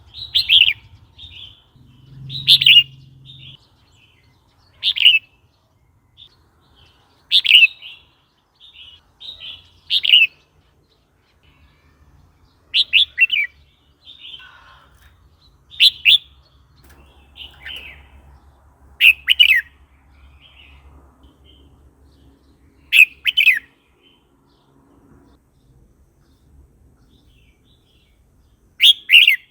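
Red-whiskered bulbul singing: short, loud phrases repeated about every two to three seconds, with softer notes in between.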